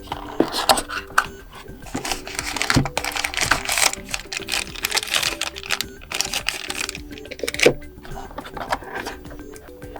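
Handling of the smartwatch's retail packaging: irregular clicks, taps and rustling of cardboard and plastic as the box is opened and its contents taken out, over quiet background music.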